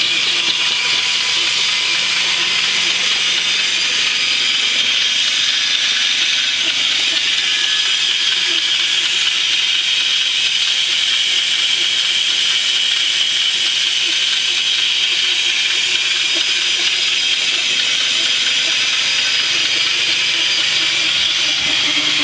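Homemade band sawmill, a bandsaw blade driven by a 2-horsepower DC motor, running steadily through wood: a loud, even, rushing hiss that holds without a break.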